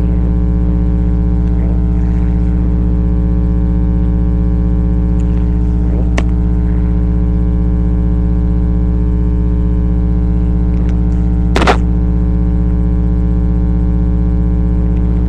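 Loud steady electrical mains hum with many evenly spaced overtones, picked up by a webcam's microphone. Two brief clicks come about six seconds in and again near twelve seconds.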